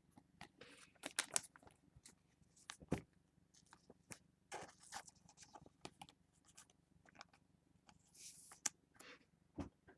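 Trading cards being handled: irregular soft scrapes, slides and clicks as cards are flipped and slid against one another.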